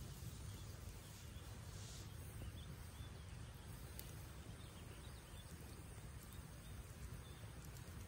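Small wood campfire crackling faintly, with a single sharp pop about four seconds in, over a steady low rumble. A few faint bird chirps.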